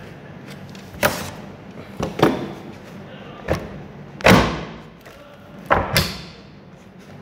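Hard plastic knocks and clicks as the HP V194 monitor's panel is pushed and worked onto its stand: a series of sharp knocks, the loudest about four seconds in.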